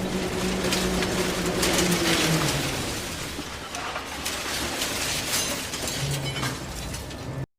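Engine hum of a toy construction vehicle. It drops in pitch and fades out about two seconds in, over a rough crackling, scraping noise. A brief lower hum comes back near the end, and then the sound cuts off abruptly.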